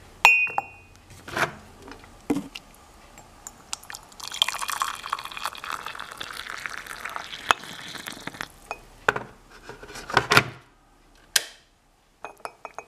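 A few knocks of the ceramic mug and tea infuser being handled, then hot water poured into the mug: a steady pouring rush starting about four seconds in and lasting about four seconds, followed by a few more knocks and clinks.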